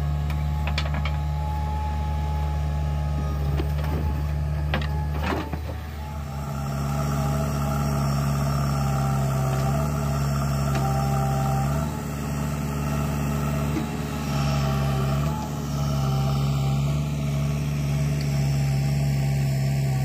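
Diesel engine of a JCB 3DX backhoe loader running steadily while it digs, dipping briefly now and then under load, with a few sharp knocks about 1 and 5 seconds in.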